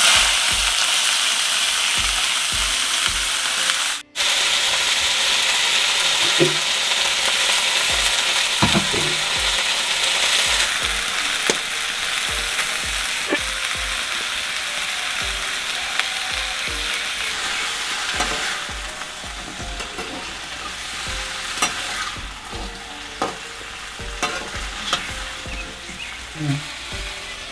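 Cauliflower frying in hot oil in a pan: a loud, steady sizzle with scattered taps and scrapes of a spoon or spatula as it is stirred. The sizzle softens after about eighteen seconds.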